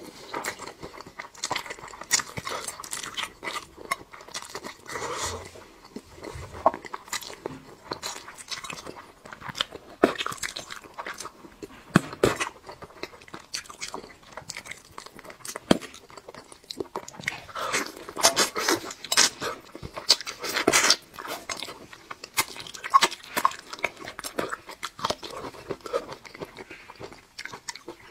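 Close-miked chewing and biting: irregular wet mouth smacks and small crunches as a person eats braised meat.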